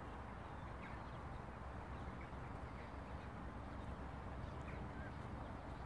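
Faint, scattered bird chirps over a steady low background rumble.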